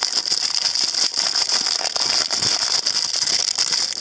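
Metallic foil wrapper crinkling steadily as hands unfold it to free a small plastic toy.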